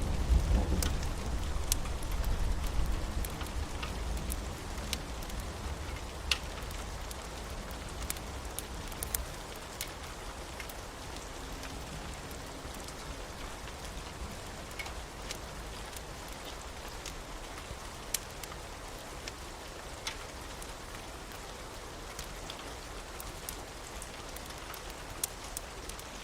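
Steady rain from a storm ambience, an even hiss with scattered sharp drops ticking through it. A low rumble of thunder dies away over the first few seconds.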